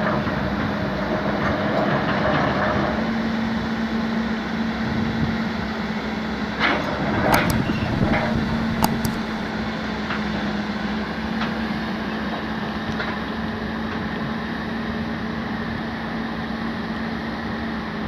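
Steady mechanical noise with a constant low hum, and a few sharp knocks and clicks about seven to nine seconds in.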